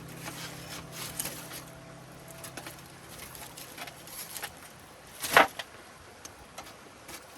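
Wood fire crackling: scattered small clicks and pops, with one loud sharp snap a little over five seconds in.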